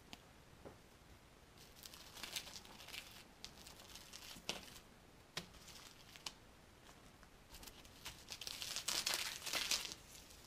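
Dry, curly wood shavings being picked up and pulled apart by hand: crinkly rustling in short bursts with a few light clicks, loudest near the end.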